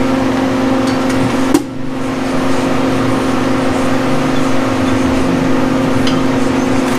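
Shop heater running with a steady hum. A single sharp knock comes about a second and a half in.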